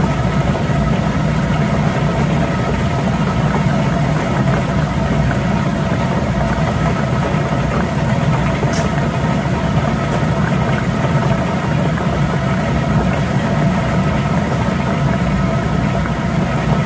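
Steady motor hum at an even level, with one brief sharp click about nine seconds in.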